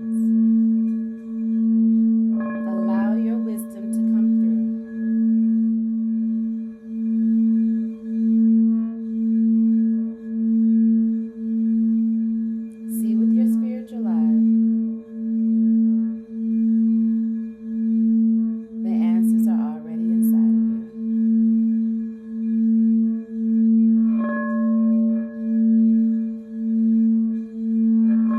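Singing bowl sounding a steady low ringing tone that swells and fades about once a second. Higher ringing tones from further bowls join briefly four times.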